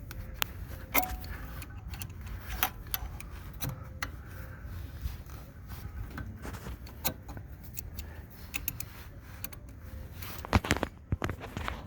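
Scattered metallic clicks and clinks of a hand tool working an easy out in a broken VW axle bolt, with a louder run of clinks near the end.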